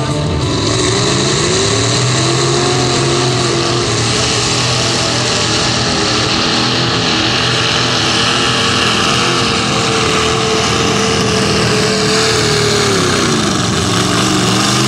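Modified pulling tractor's engine at full throttle, hauling the weight-transfer sled down the track. The pitch climbs over the first couple of seconds, holds high and steady, then falls off near the end as the throttle comes back, before one short rise.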